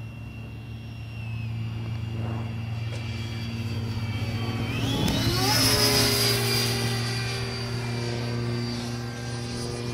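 Electric ducted-fan RC jet (CARF Spark with a StumaX 110 fan) flying past, its fan whine climbing steeply in pitch about halfway through and then easing slowly down as it passes, loudest just after the climb. A steady low hum underlies it throughout.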